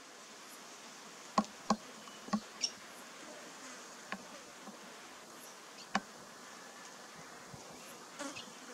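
A bee buzzing as it hovers around flowers, with several sharp clicks scattered through.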